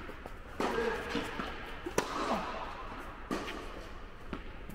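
Tennis rally: a ball struck back and forth with rackets and bouncing on the court, about four sharp hits, echoing in an indoor tennis hall.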